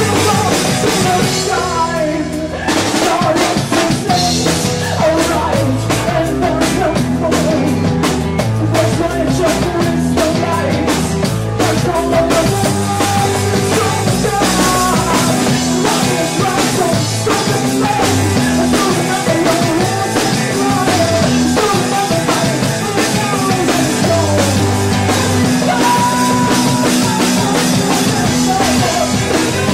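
Rock band playing live: a female lead singer over drum kit and electric guitar, with a brief break in the band about two seconds in.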